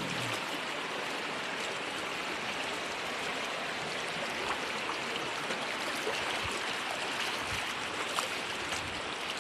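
Shallow stream running steadily over rocks.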